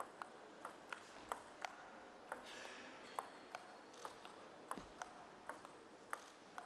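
Faint, sharp clicks of a table tennis ball bouncing and being struck off rackets and table, a few clicks a second.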